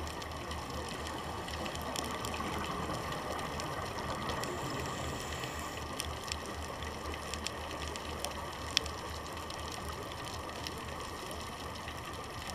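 Underwater reef ambience picked up by a diver's camera: a steady wash of noise with a low, throbbing hum and scattered sharp clicks, one louder click near the end.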